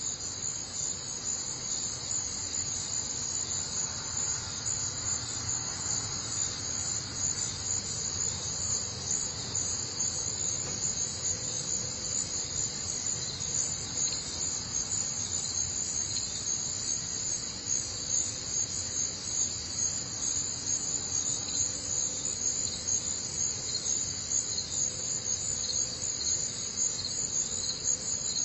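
A dense, steady chorus of insects: a high, shrill buzzing that keeps on without a break.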